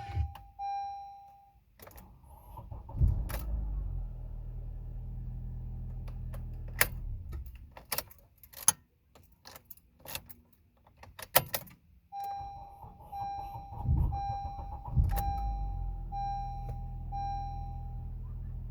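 A 2014 Honda Accord's engine is started twice, each time catching after a brief crank and settling into a steady idle. The car's chime beeps about twice a second before each start, and clicks and a jingle of keys come between the two starts.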